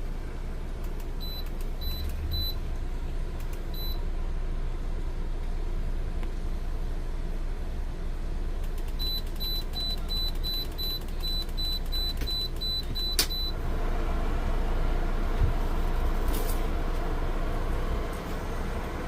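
Ductless air conditioner running with a steady low hum while its control beeps, first a few single beeps and then a quick run of about a dozen as settings are stepped through. About 13 seconds in there is a click, and a louder rush of air follows as the unit picks up.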